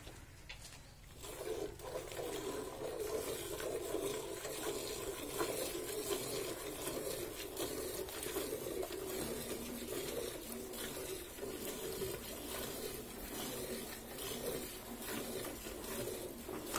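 Milk squirting from a cow's teats into a steel bucket as she is hand-milked with the full-fist grip, a continuous run of quick squirts that starts about a second in.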